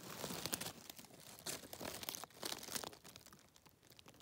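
Dry leaf litter rustling and crackling close to the microphone, dense at first and thinning out after about three seconds.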